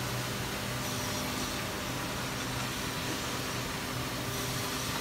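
Steady hum and hiss of factory machinery running, with a low droning tone and no knocks or changes.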